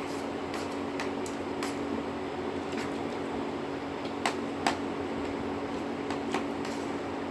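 A person eating muri (puffed rice) with ghugni: scattered short crisp crunches and clicks, two louder ones about four and a half seconds in, over a steady mechanical hum like a fan.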